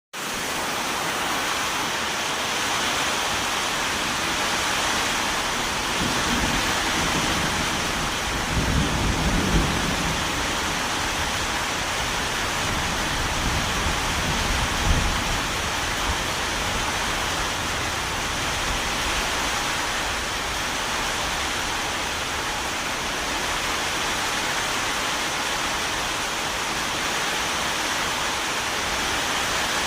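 Steady rain falling, an even hiss, with low rumbles of distant thunder about six to ten seconds in and again around fifteen seconds.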